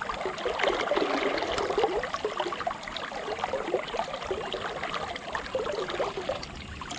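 River current flowing and gurgling, an even, busy babble of small water sounds.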